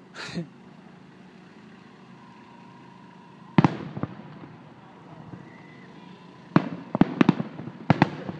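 Aerial fireworks shells bursting at a distance: one sharp bang about three and a half seconds in, then a quick run of five or six bangs near the end, each with a short echo.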